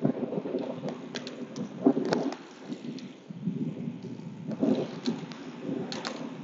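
Wind buffeting the phone's microphone on a moving bicycle: an uneven, gusty low rumble with scattered faint clicks.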